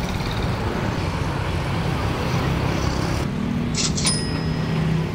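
Street traffic: motorbikes and cars passing, engines running with a steady low hum under an even road noise, and a few short high-pitched sounds about four seconds in.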